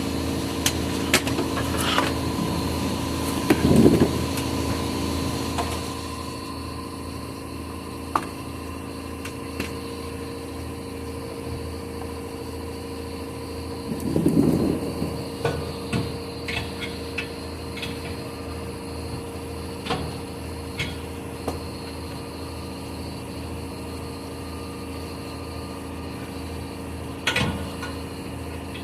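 Impact wrench hammering exhaust clamp nuts tight in short bursts: two longer runs, about four and about fourteen seconds in, and a brief one near the end. Over a steady mechanical hum that drops in level about six seconds in, with scattered clicks of tools.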